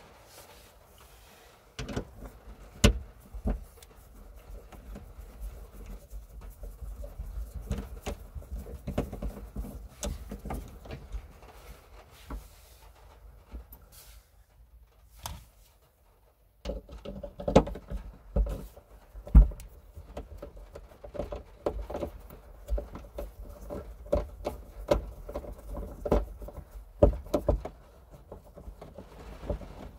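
Irregular clicks, taps and knocks of hands working at a car's tailgate, over a low rumble. The sound drops out briefly about halfway through, then comes back busier, with a few sharper knocks.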